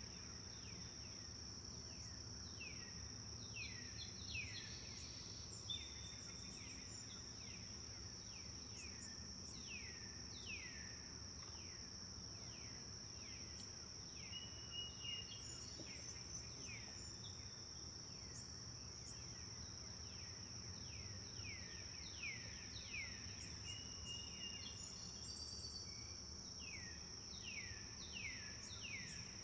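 Forest birdsong: many quick, downward-sweeping chirps, with a few short steady whistles, over a constant high-pitched drone.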